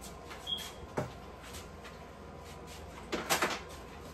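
A few light knocks and clatters of kitchen things being handled at the counter and sink: a sharp knock about a second in and a short run of clattering rustles near the end.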